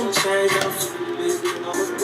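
Hip-hop music with vocals playing in the room.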